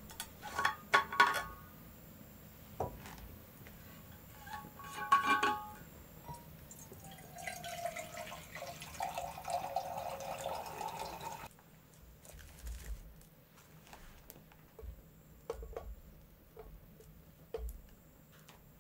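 Cookware clinking and ringing briefly, twice. Then liquid is poured into a vessel for about four seconds, its pitch rising as it fills, followed by a few soft taps.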